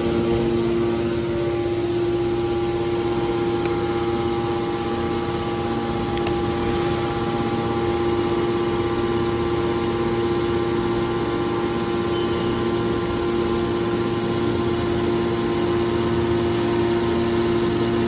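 Metal baler machine running steadily: a constant pitched machine drone that holds the same pitch throughout.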